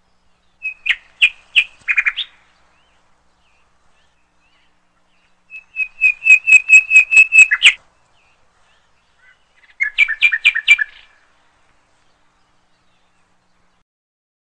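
A bird chirping in three short bursts of rapid, evenly repeated high notes; the middle burst is the longest.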